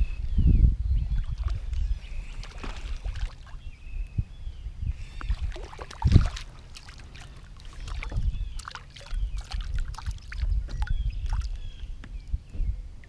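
Sounds of fishing from a kayak: low rumble of handling and wind on the microphone, scattered clicks and knocks of gear against the hull, one louder knock about six seconds in, and birds chirping in the background.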